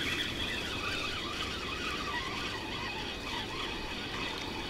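Spinning reel on a feeder rod being cranked steadily, a continuous whirring of the reel's gears and rotor as line is wound in with a hooked roach on.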